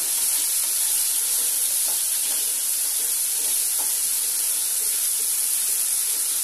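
Cumin and green chilli paste sizzling steadily in hot mustard oil in a frying pan, stirred with a wooden spatula. The paste is fried through and ready for the fish to go in.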